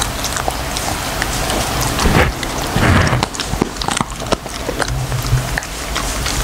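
A labradoodle crunching and chewing a bone treat: a run of sharp cracks and clicks, with the two loudest crunches about two and three seconds in.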